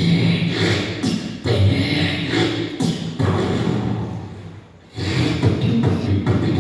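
Beatboxing into a microphone: vocal kick-drum thumps and snare sounds in a rhythmic pattern. It fades out about four seconds in and starts again a second later.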